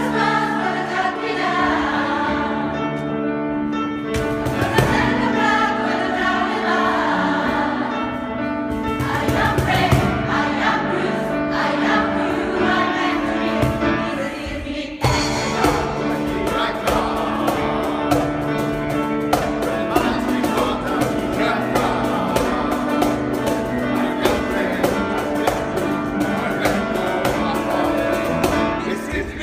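Mixed gospel choir singing with piano and cajón accompaniment. Cajón strikes come in a few seconds in and grow busier and louder about halfway through.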